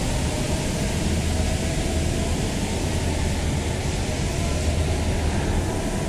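Steady rushing noise with a constant low hum inside a bored concrete metro tunnel, the general din of air and machinery in the tunnel; it holds even, with no separate events.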